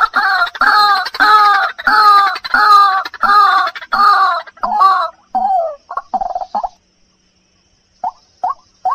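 White-breasted waterhen (ruak-ruak) calling: a fast, loud series of repeated harsh notes, each falling in pitch, about two or three a second. The series breaks off about seven seconds in, and a few short notes follow near the end.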